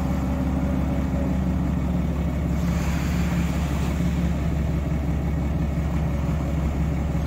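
Truck engine idling steadily, a low even hum.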